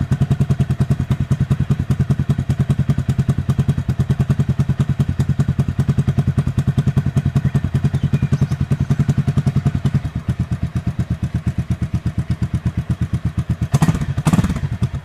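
Motorcycle engine idling with a fast, even pulse, a little quieter from about ten seconds in. Near the end come a couple of louder knocks and a short rise and fall in pitch, then the sound stops abruptly.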